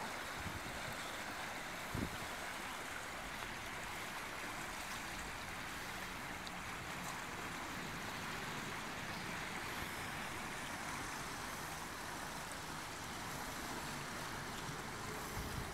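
Steady rush of river water flowing around the wading riders and the half-submerged dirt bike, with a single dull thump about two seconds in.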